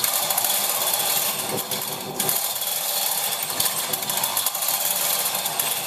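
Chain hoist lowering a heavy Chrysler Hemi V8 engine block, its chain clattering steadily through the hoist.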